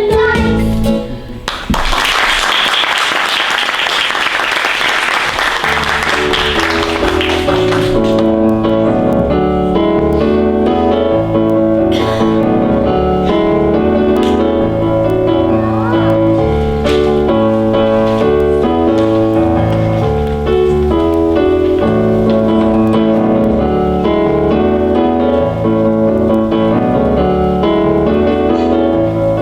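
Music ending about a second in, then audience applause for about six seconds. After that a piano plays an accompaniment with a steady rhythm.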